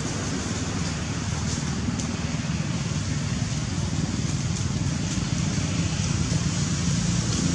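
Steady outdoor background noise: a low rumble under an even hiss, with a few faint ticks.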